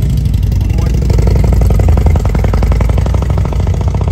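Motorcycle engine running, a loud low rumble with rapid firing pulses that grows stronger about a second in.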